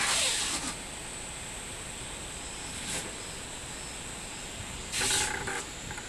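Robust cicadas (minmin-zemi) singing in the trees, a steady high-pitched drone throughout. Two short, loud, harsh sounds break over it, one at the very start and one about five seconds in.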